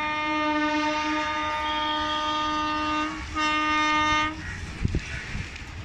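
Indian Railways AC electric locomotive horn sounding as the train nears the station: one long steady blast, then after a short break a second blast of about a second. A low rumble lies beneath.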